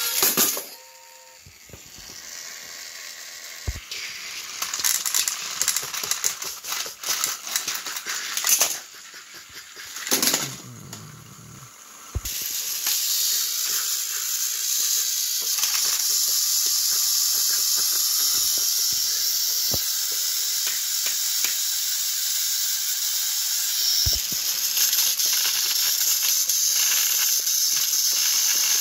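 Irregular rattles and knocks, then from about twelve seconds in the steady whirring hiss of battery-powered toy train engines running with their motors and gears driving as two engines push head-to-head against each other on plastic track.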